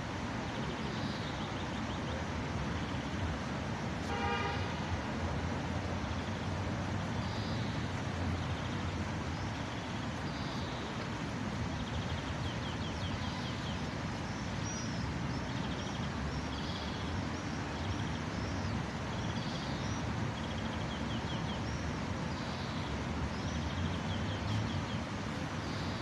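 Steady city street traffic, with a car horn honking once, briefly, about four seconds in. Faint high chirps and short trills repeat about once a second over the traffic.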